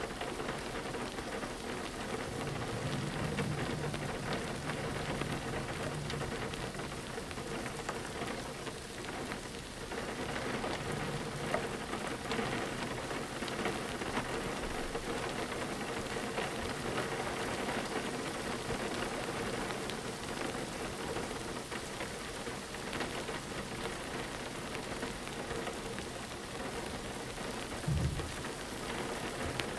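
Steady rain falling on a window, an even patter with no let-up. A short low thump sounds near the end.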